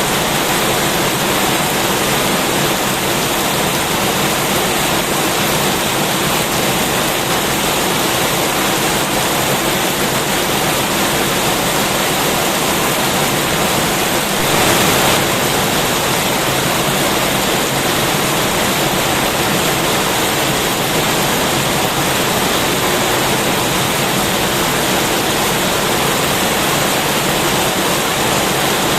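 Heavy rain falling in a steady, dense hiss, swelling briefly about halfway through.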